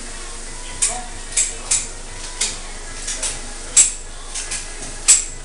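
Small steel pistol parts of a Grand Power X-Calibur clicking and clinking as they are handled and fitted into the frame: about ten sharp metallic clicks at uneven intervals, the two loudest in the second half.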